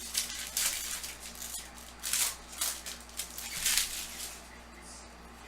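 Baseball trading cards being handled on a table: a string of short, papery rustles and slides, about seven in the first four seconds, dying away near the end.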